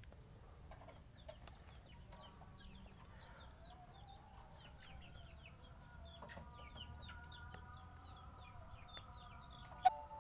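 Birds chirping rapidly in many short, falling chirps, with a lower wavering call underneath. A brief sharp sound comes near the end.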